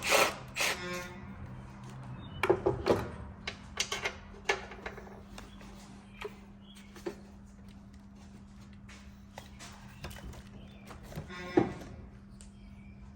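Clicks, knocks and a brief squeak of hands working an ignition coil loose and pulling it out of the engine's coil well, in clusters near the start, a few seconds in and again near the end, over a steady low hum.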